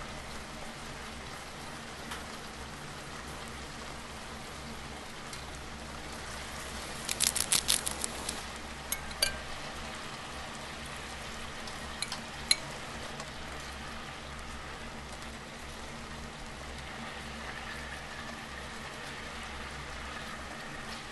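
Steady sizzling hiss of food frying in a pan. About seven seconds in comes a quick run of about six sharp clinks, followed by a few single clicks.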